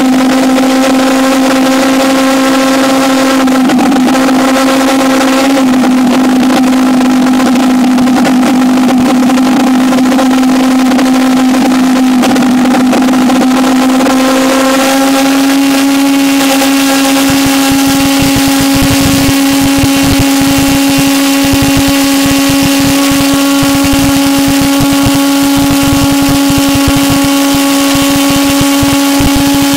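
Small pulse jet engine of about 2.25 lb thrust running: a loud, steady buzzing drone. About halfway through, its pitch rises slightly and then holds, with a rougher low rumble underneath in the second half.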